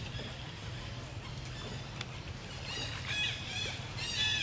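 Short, high animal calls, each rising and falling in pitch, four or five in quick succession starting about halfway through and loudest near the end, over a steady low hum.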